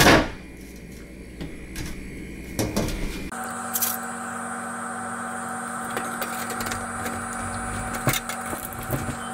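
Steel putty knife clicking and scraping against glazier points as they are pushed into a wooden window frame: a few sharp clicks and knocks. A short loud bump opens it, and a steady hum runs under the clicks from about a third of the way in.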